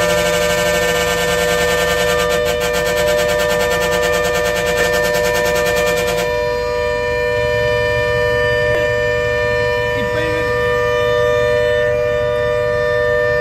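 Bus horns held on continuously to drive a wild elephant off the road: a steady multi-note horn tone sounds throughout. For about the first six seconds a harsher, rapidly pulsing buzz lies over it, then stops abruptly.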